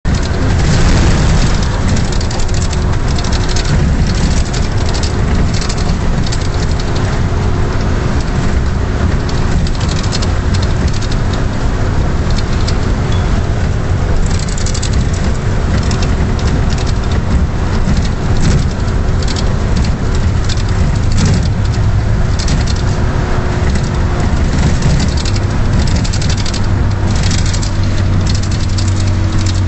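Strong storm wind gusting and buffeting the microphone, with the hiss and patter of rain. A faint steady low hum runs underneath.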